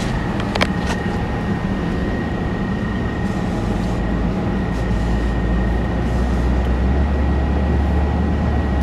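Steady machinery noise with a thin, steady high whine over it. A single click comes about half a second in, and a low rumble grows stronger over the second half.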